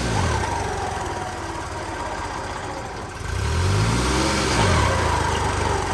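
New Holland 3630 tractor's diesel engine at full throttle in third-high gear, bogging down under load: its note sags near the start, then climbs again and gets louder about three seconds in.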